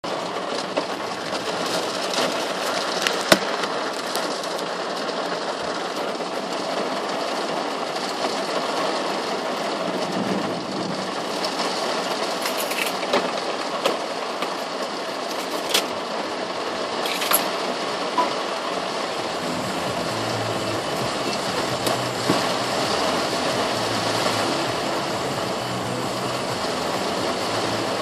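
Heavy rain drumming on a car's roof and windshield, heard from inside the cabin, with a few sharp clicks. A low rumble comes in about two-thirds of the way through.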